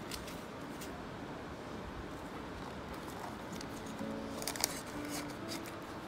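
Soft background music with held notes, over the handling of a small quilted leather clutch: light clicks near the start and a cluster of crisp clicks and rustles a little past the middle as folded banknotes are pushed inside.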